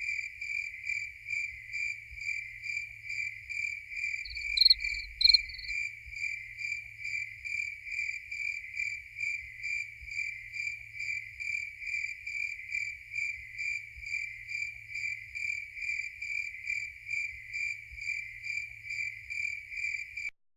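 Crickets chirping in a steady, even rhythm, about two chirps a second. About four and a half seconds in, two short, louder, higher-pitched chirps sound briefly over them.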